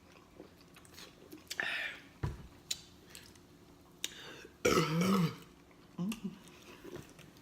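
Mouth sounds of eating pizza: wet chewing and smacking clicks. There are short throaty vocal sounds among them, the loudest about five seconds in.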